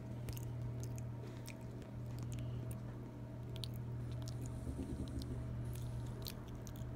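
Pet monkey chewing close to the microphone: irregular small wet clicks and smacks from its mouth, over a steady low hum.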